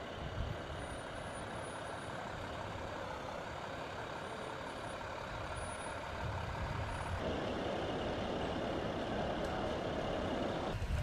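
Steady rushing noise of a forest wildfire scene, with fire trucks' engines running. The sound shifts abruptly, louder and brighter, about seven seconds in.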